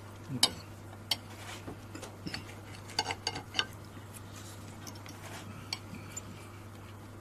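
Knives and forks clinking against plates as two people eat: scattered single clicks, with a quick run of three a little past the middle, over a faint steady low hum.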